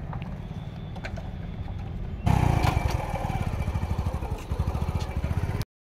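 Motorcycle engine running at a low, steady idle, then louder and faster about two seconds in as the bike rides off. The sound cuts off suddenly near the end.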